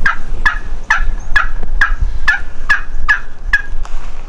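A series of about nine evenly spaced turkey hen yelps, about two a second, each note dropping in pitch, the calling that hunters use to draw gobblers in. A low steady rumble runs underneath.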